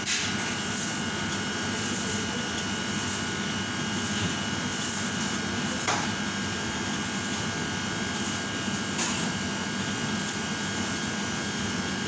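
Steady mechanical hum holding several constant tones, with a couple of faint clicks about six and nine seconds in.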